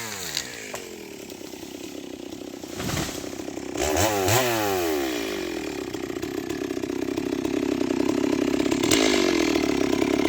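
Stihl MS 382 two-stroke chainsaw dropping from cutting speed to idle as the throttle is released, then revved briefly twice about four seconds in before settling into a steady, fast-pulsing idle.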